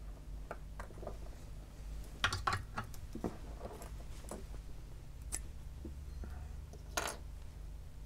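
Faint clicks, taps and rustles of small plastic and metal parts as an Antex XS25 soldering iron is taken apart by hand, with a sharper cluster of clicks about two seconds in and another single click near the end, over a low steady hum.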